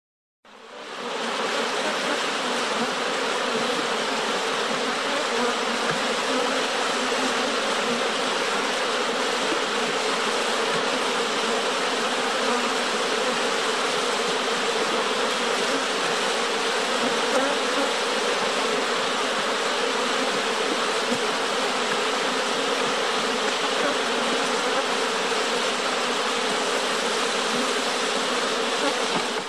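Bee buzzing steadily, a dense continuous drone that fades in over the first second and stops abruptly at the end.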